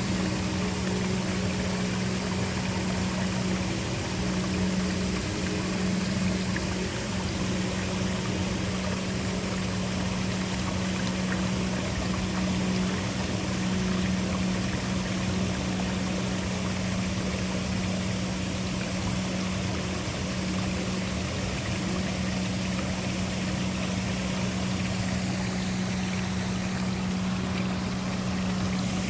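Waterfall rushing steadily, with a low, even hum underneath.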